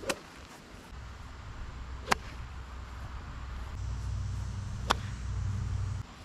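Golf balls struck off the tee with clubs: three sharp cracks of club on ball, right at the start, about two seconds in and about five seconds in. A low rumble runs underneath from about a second in and stops shortly before the end.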